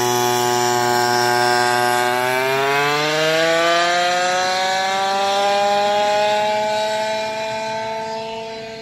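Go-kart's small Goped two-stroke engine running hard as the kart pulls away. Its pitch climbs about two to four seconds in as it speeds up, then holds, and the sound fades near the end as the kart moves off into the distance.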